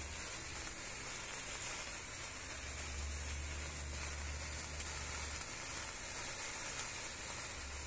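Hand-held sparklers burning with a steady fizzing hiss.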